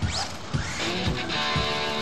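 Background music: guitar over a steady beat of about two drum hits a second.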